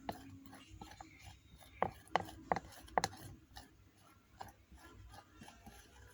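A spoon scraping and knocking against a bowl as a sticky glue-and-detergent slime mixture is stirred, with four sharp clicks about two to three seconds in.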